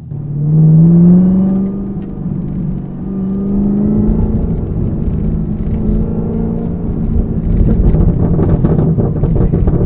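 Chevrolet Camaro ZL1's supercharged 6.2-litre V8, fitted with a cold air intake and an aftermarket cat-back exhaust, accelerating on the road. The exhaust note rises quickly about half a second in, eases off briefly, then pulls again, growing louder near the end. The exhaust is so loud that the supercharger can barely be heard.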